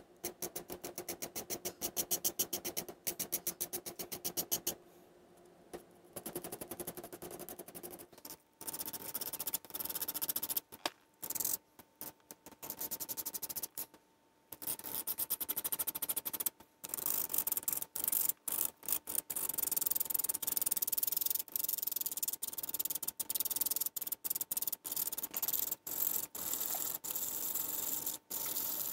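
An Esterbrook 9550 steel fountain-pen nib filed with a nail file in quick, even back-and-forth strokes, then scraped back and forth on sandpaper, with a few short breaks in between. The nib is being reground because it writes too scratchy.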